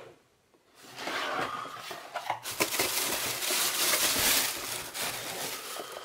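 A cardboard shoebox being opened and its tissue paper rustling and crinkling as it is pulled back from a pair of canvas shoes, with a few light knocks against the box. The rustling starts about a second in and is loudest around four seconds in.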